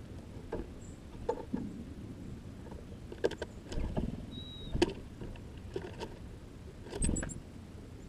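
Irregular clicks and knocks of small birds' feet and bills on a seed-filled wooden feeder, with a couple of low thumps, one in the middle and one near the end. A short high note and a few faint high chirps come through.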